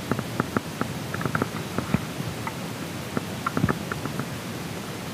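Water sloshing and gurgling against a kayak hull, with irregular small splashes and drips from a paddle in the water.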